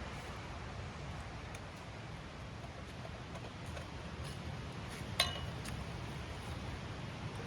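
Snowmelt stream flowing steadily, with a single sharp clink, like metal or glass struck lightly, about five seconds in.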